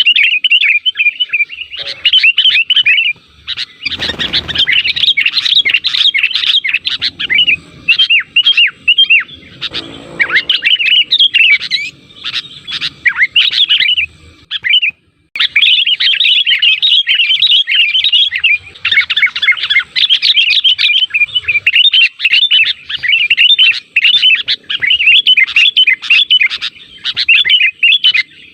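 Sooty-headed bulbuls singing in a dense, busy chatter of quick, bubbling chirps, with a brief break about halfway through. Two dull low thumps come under the song near the start and about a third of the way in.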